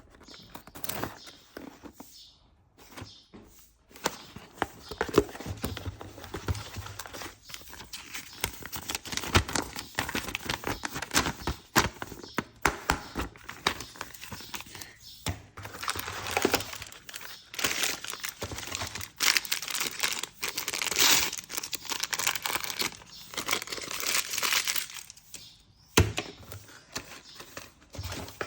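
Trimmer packaging being opened by hand: cardboard box and wrapping torn and crumpled, with many scattered clicks and knocks, busiest in the second half.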